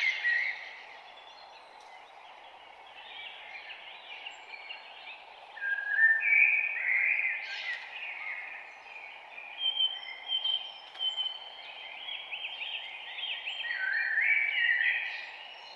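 Songbirds singing: short warbled phrases of quick, high notes that rise and fall, loudest about six seconds in and again near the end, over a steady low hiss of background noise.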